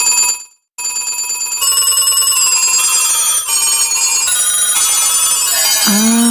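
Telephone ringing with a fast trilling bell, breaking off briefly and starting again; from about a second and a half in, more and more sound effects pile on over it into a din, and near the end a lower steady tone swoops up and holds.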